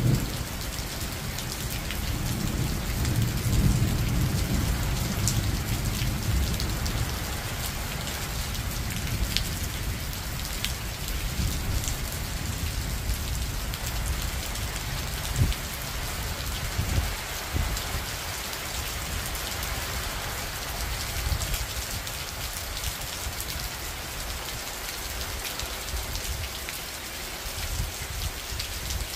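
Steady rain falling on surfaces, with fine drop ticks. A low rumble of thunder rolls through the first several seconds, then fades.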